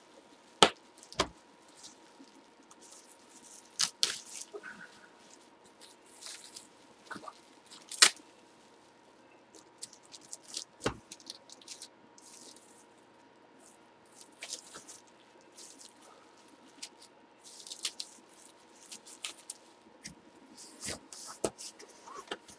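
A hand rummaging through bubble wrap in a cardboard box: scattered plastic crinkling and sharp clicks, the loudest about half a second, a second and eight seconds in. A faint steady hum runs underneath.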